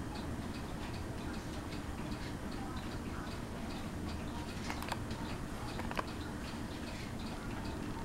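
Hampton Bay Miramar ceiling fan running with a steady low hum, under a regular light ticking about twice a second, with a couple of sharper clicks past the middle.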